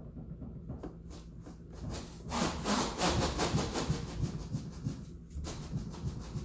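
Front tyres scrubbing and rubbing on the concrete floor as the steering of an EF Honda Civic with a manual rack is turned with the car stationary. It is a rough, rapid scraping, fainter at first and loudest from about two and a half seconds in, with a short break near the five-second mark. No heavy clunk comes through, which suggests the new rack end bushing and rack adjustment have largely cured the clunk.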